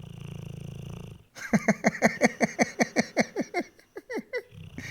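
Pit bull snoring loudly in deep sleep. A steady, buzzing rumble on the in-breath gives way to a rapid run of about fifteen sputtering, falling notes, roughly five a second. The rumble starts again near the end.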